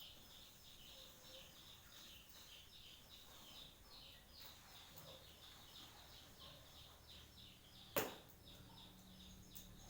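Faint, rapid chirping of small birds, short notes repeating about three times a second. A single sharp click about eight seconds in.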